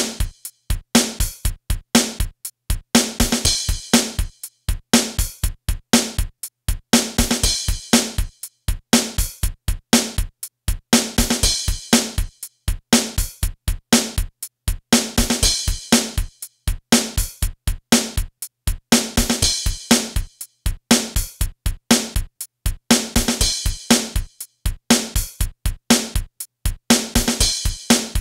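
Background music with a steady drum-machine beat of kick, snare and hi-hat.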